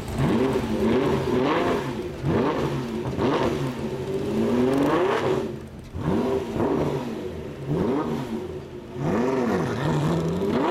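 Lamborghini Murciélago's V12 being revved in a string of quick throttle blips, the engine note rising and falling about once a second, with two brief lulls between bursts.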